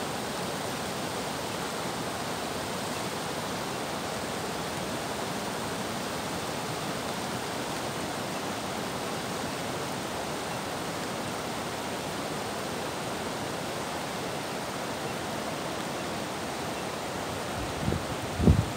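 Steady rush of the Coquihalla River in flood, fast high water carrying logs and debris. A few low thumps come near the end.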